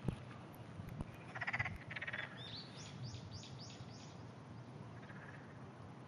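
Distant frogs croaking: a rattling, pulsed call about a second and a half in and a shorter one right after it. A quick run of about five high, falling chirps follows, then only a faint steady background.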